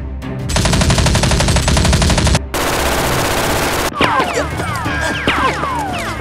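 Machine-gun fire sound effect: two long rapid bursts, then scattered shots with falling whistling tones.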